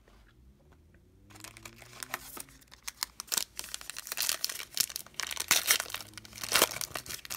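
Plastic trading-card pack wrapper being torn open by hand and crinkling. Quiet for about the first second, then a run of crinkling and tearing that is loudest near the end.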